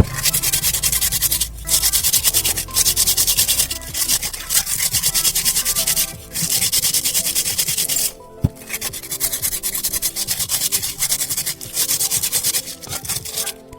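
Rapid rubbing strokes, like sanding or scraping by hand, in bouts of a second or two with short pauses and a longer break with a single click about eight seconds in. Background music plays underneath.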